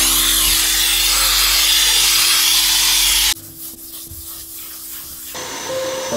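Handheld steam cleaner hissing steadily as its cloth-wrapped nozzle is worked over an Alcantara dashboard, cutting off suddenly a little over three seconds in. After that, quieter rubbing of a hand over the suede surface.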